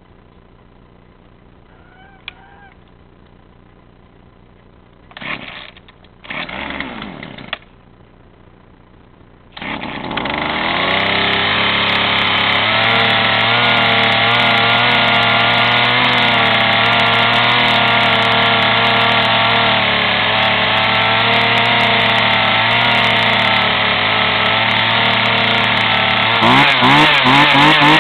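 Sears Craftsman 2.2 chainsaw's two-stroke engine being started: two short sputters about five and seven seconds in, then it catches at about ten seconds and runs steadily. Near the end it is revved up and down.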